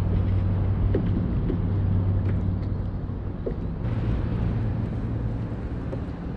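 Outdoor ambience on open water: a steady low hum under an even rushing noise, shifting slightly in tone about four seconds in.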